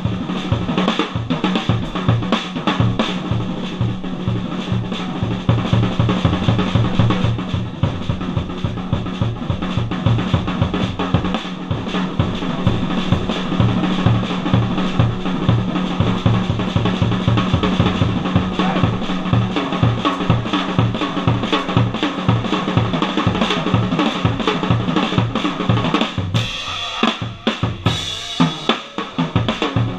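Jazz drum kit solo, played live with sticks: a steady bass-drum pulse under busy snare and tom figures. Near the end the pattern breaks up into cymbal crashes.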